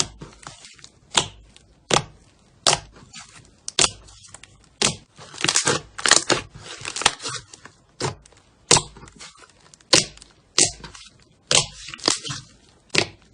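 Slime being squeezed and pressed by hand, giving sharp crackling pops about once a second, with a longer run of crackling around the middle.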